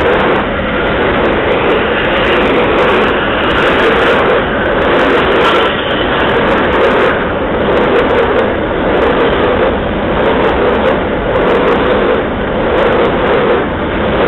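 Container wagons of a freight train rolling past close by: a loud, steady rumble of steel wheels on the rails.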